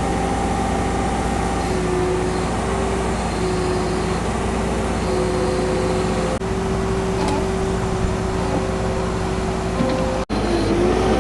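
A vehicle engine idling steadily, broken by a very short gap near the end.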